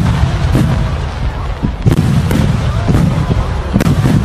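Fireworks display: aerial shells bursting, with several sharp bangs a second or so apart over a continuous low rumble and crackle.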